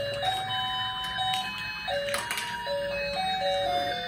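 Battery-powered toy kitchen set playing a simple electronic beeping tune, single steady notes stepping up and down, with a few sharp clicks of plastic toy pieces being handled. The tune cuts off suddenly near the end.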